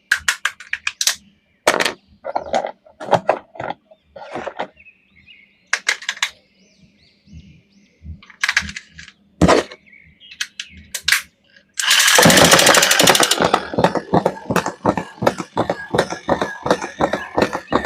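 Plastic action-figure toys and their packaging being handled: scattered sharp clicks and knocks. About twelve seconds in they give way to a fast, continuous rattle of clicks.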